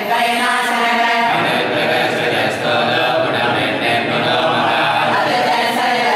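A group of voices chanting Hindu scripture together, read aloud from books in a steady, sing-song recitation. The voices are crisp together at first and then blur as they fall slightly out of step.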